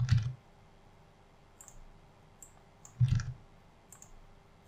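Clicking of a computer mouse and keyboard: two louder clicks, one right at the start and one about three seconds in, with a few faint light ticks between them.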